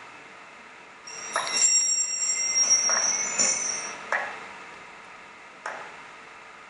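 High-pitched ringing tones, several at once, starting about a second in and lasting about three seconds, with a handful of sharp knocks, the last one near the end.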